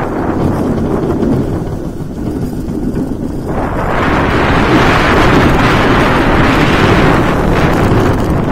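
Wind rushing over the rider's microphone together with the running roar of a Bolliger & Mabillard inverted coaster train on its steel track. It eases for a couple of seconds, then swells loud again from about three and a half seconds in.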